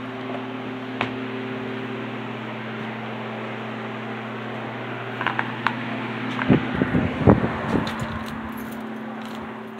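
Handling noise of a phone being carried while its owner moves about: a cluster of clicks, rattles and low knocks about five to eight seconds in. Under it runs a steady low hum with a constant hiss.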